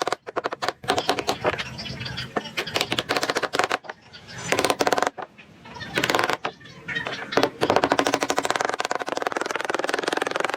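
Rapid, even clattering strokes from a woodworking tool cutting or working wood. It starts and stops several times.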